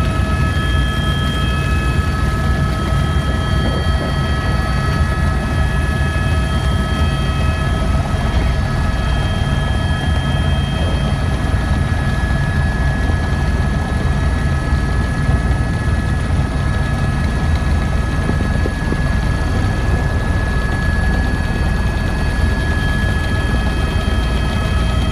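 Helicopter in level flight heard from inside the cabin: a loud, steady low rotor rumble with several constant high-pitched whines over it.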